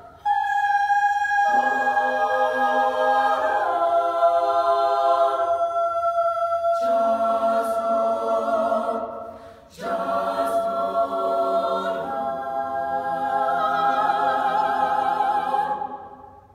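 Women's choir singing a spiritual a cappella in close harmony, long held chords. The sound breaks off briefly about halfway through, then the voices come back in and end on a held final chord that fades out near the end.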